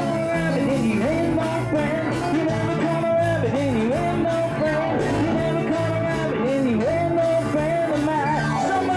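Live band playing dance music through the PA, a male singer on a microphone over electric guitar and bass with a steady beat.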